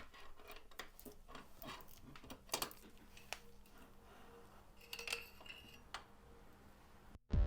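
Scattered light metallic clicks and small knocks of handling, with a faint steady hum behind them. Near the end the sound cuts out, and music starts.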